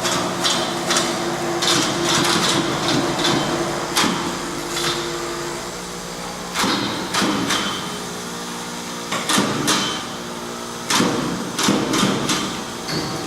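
Factory machinery running with a steady hum, under repeated sharp knocks and clacks that come in quick clusters.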